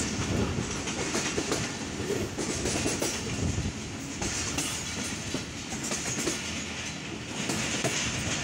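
Moving passenger train heard from an open door: steady rolling noise with the wheels clicking irregularly over rail joints and points.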